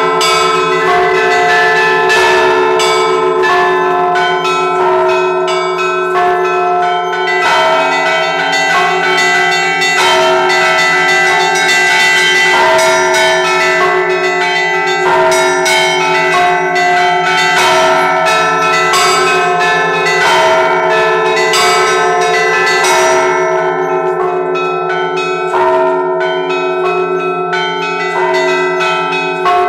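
Russian Orthodox church bells rung by one ringer in razgonny zvon, the Sunday peal marking the end of the service. Quick strikes of the small bells play over a regularly repeating middle bell and the long hum of the larger bells.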